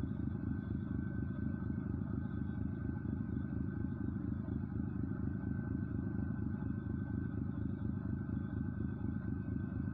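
An engine running steadily: a low, even rumble with a thin steady whine above it.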